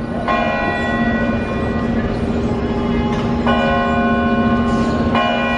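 Large bell being struck about three times, each strike ringing on over a steady low hum.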